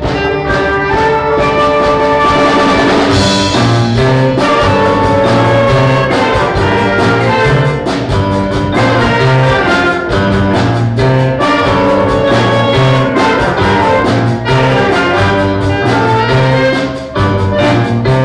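Middle school concert band playing a piece, brass to the fore, with held notes over low notes on a regular beat.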